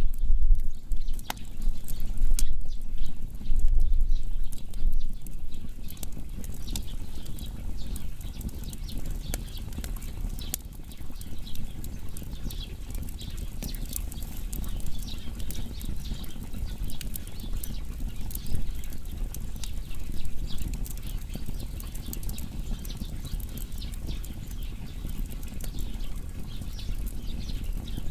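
Wood fire burning, with frequent irregular sharp crackles and pops over a steady low rumble of flame.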